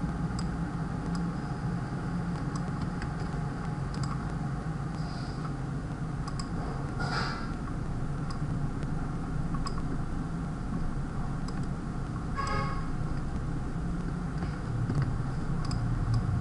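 Scattered clicks of a computer mouse and keyboard, roughly one every second or so, with two louder clicks about seven and twelve seconds in, over a steady low hum.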